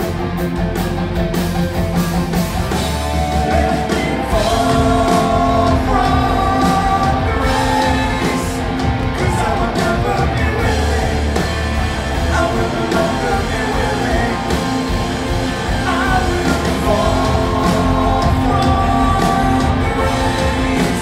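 Post-hardcore band playing live: a singer over electric guitars, bass guitar and drums, heard from the crowd with the echo of a large hall.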